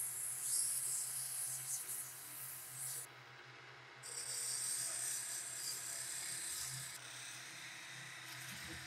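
A wood lathe motor hums steadily while a spinning turned-wood handle is worked with a rasping, hissing sound. The upper rasp stops briefly about three seconds in, then comes back as a hacksaw is held against the turning wood, cutting through it.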